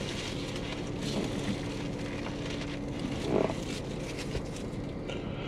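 A car's steady low running hum heard from inside the cabin, with a faint short vocal sound about halfway through.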